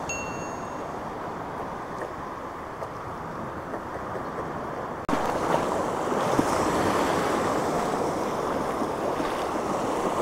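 Waves breaking on the shore, a steady rush of surf with wind on the microphone, jumping louder about five seconds in.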